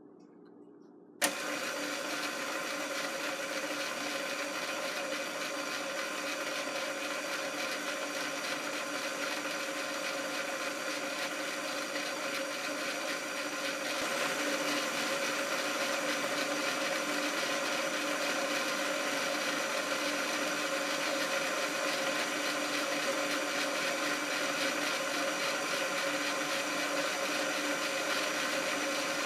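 KitchenAid bowl-lift stand mixer switched on about a second in, its motor and gearing then running with a steady whine as the dough hook spins in the bowl. It gets slightly louder about halfway through.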